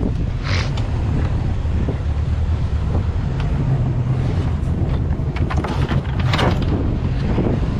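Tow boat's engine running with a steady low drone while under way, with wind buffeting the microphone in gusts.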